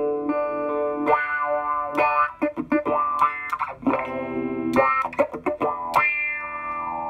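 Electric guitar played through an EarthQuaker Devices Spatial Delivery envelope filter set to upward sweep with the filter on high-pass. Held chords give way, about a second in, to a run of choppy strums with sharp picking attacks. About six seconds in it settles into a ringing chord.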